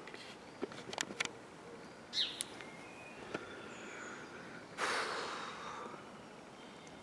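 Small birds chirping: a short downward-sweeping chirp about two seconds in, with a few other thin whistled notes. A few sharp clicks come about a second in, and a brief rush of noise starts around five seconds and fades.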